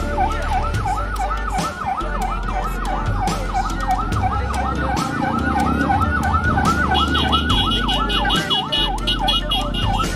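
Ambulance siren in fast yelp mode, sweeping up and down in pitch about four times a second without a break, over a low rumble.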